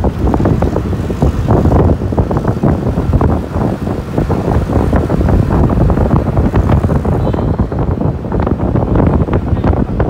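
Wind buffeting the microphone through the open window of a moving vehicle, over its engine and road noise.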